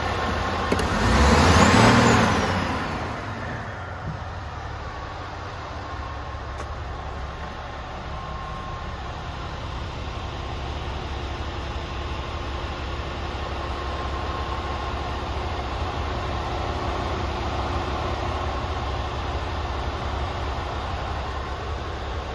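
Scania G440 truck's diesel engine idling steadily, heard from inside the cab, with a loud hiss about a second in that lasts a couple of seconds.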